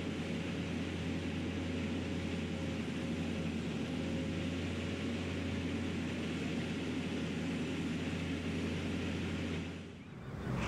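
Steady machinery rumble with a constant low hum and a faint, even whine above it. It does not rise or fall until it fades out near the end.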